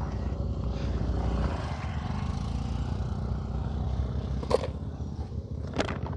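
A small engine idling steadily, with two sharp knocks about a second apart near the end as the scooter's rubber floor mat is fitted back in place.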